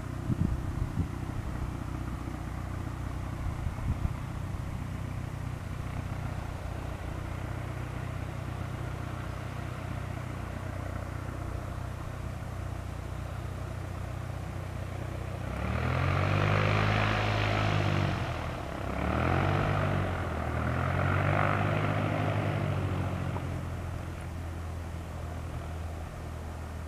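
Light aircraft piston engines idling steadily on the ground. About halfway through, a nearby propeller engine revs up and back down three times in quick succession, much louder than the idle.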